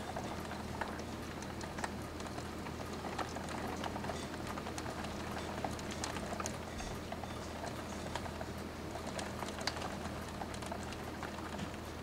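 Rain falling during a thunderstorm: a steady hiss dotted with many sharp drop ticks, over a steady low hum.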